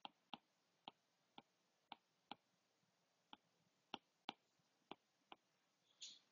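Faint, irregular taps of a stylus on a tablet screen while writing, about two a second, with a short soft scrape near the end; otherwise near silence.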